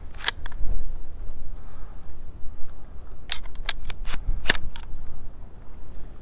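Steady low wind rumble on the microphone. Sharp clicks and knocks cut through it: one near the start, then a quick run of about six between three and five seconds in.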